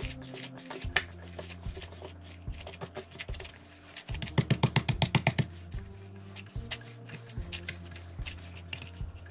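Gloved hands kneading a wet ground beef and pork patty mixture in a glass bowl: irregular squelching and scraping over soft background music. Midway, a rapid run of about ten loud pulses a second lasts about a second.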